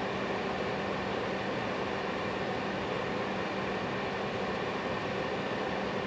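Small ceramic space heater running, its fan giving a steady rush of air with a low hum.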